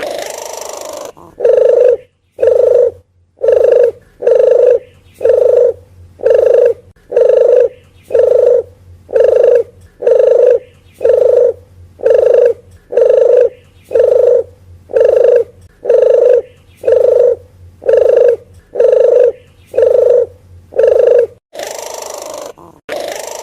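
Red collared dove calling: a long steady run of short, low coos, about one every three-quarters of a second, with a longer, hoarser call at the start and again near the end.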